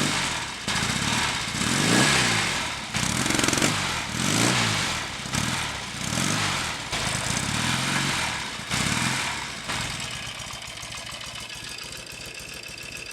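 Norton Commando 850's air-cooled parallel-twin engine being revved, the revs rising and falling about six times, then dropping back to a steady idle about ten seconds in. It is running cold on its first start of the day, with no unusual mechanical noise after the primary chain was slackened.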